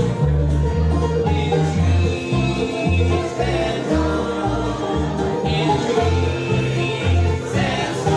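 A bluegrass string band playing an up-tempo tune: banjo, mandolin and guitar picking over an upright bass plucking steady low notes about twice a second, with a fiddle in the ensemble.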